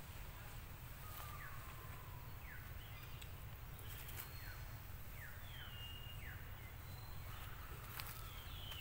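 Outdoor ambience: birds giving short, falling chirps every second or so, with a few longer whistled notes, over a steady low rumble.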